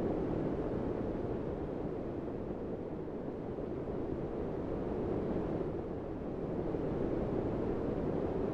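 Steady low rumbling noise with no distinct events, dipping slightly about three seconds and again about six seconds in.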